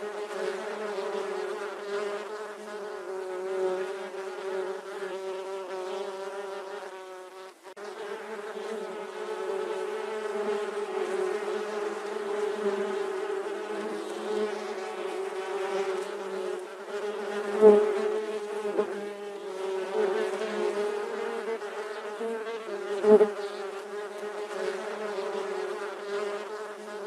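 Bee buzzing in flight: a steady, even-pitched buzz that wavers slightly, drops out briefly about seven seconds in, and swells sharply louder twice in the later part.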